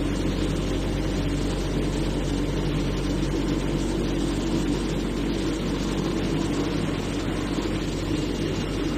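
CNC cutting machine running: a steady mechanical hum with constant low tones and an even whirring noise.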